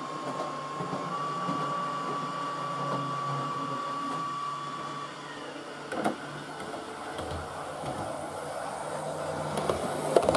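Model railway locomotives running: a steady high whine for the first few seconds over a low, diesel-like hum from the model motors and sound decoder, with a single click about six seconds in. Near the end the clicking and rumble of the model parcels unit's wheels on the track grow louder as it passes close by.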